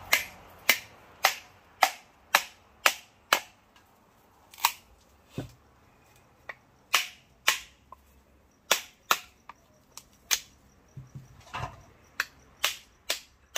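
Sharp cracks and snaps as a knife pries chunks of meat out of a halved dry coconut shell, about two a second, with a short pause about four seconds in.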